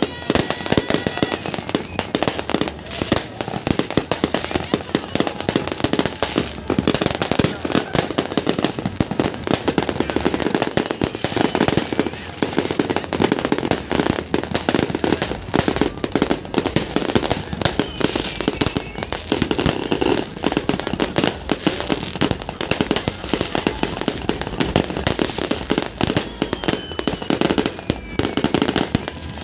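Fireworks going off without a break: a dense, rapid run of bangs and crackling bursts, with voices underneath.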